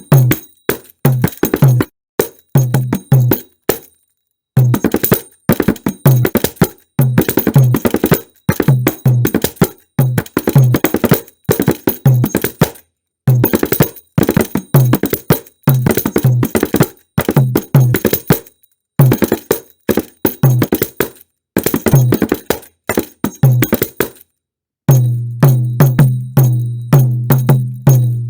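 Sampled Indian percussion loops from the Native Instruments Discovery Series India Kontakt library: quick, busy drum patterns with pitched low bass strokes, played as phrases of a few seconds with short gaps between them. Near the end a new, denser pattern starts over a held low tone.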